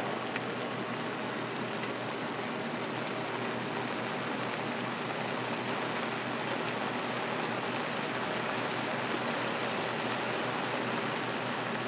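Morels frying in butter in a frying pan, sizzling steadily.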